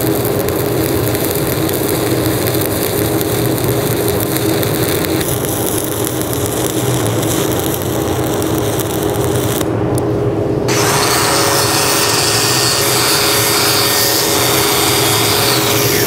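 Stick-welding (SMAW) arc burning steadily as a fill pass is run on a beveled steel plate joint. About ten seconds in it gives way to a cordless angle grinder with a wire wheel brushing the weld bead.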